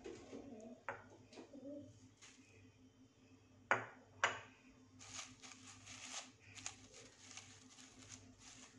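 Faint kitchen handling sounds. Two sharp clicks come about three and a half seconds in, about half a second apart. After them comes a run of light taps and clicks as a silicone spatula works agar agar strands around a pot of water.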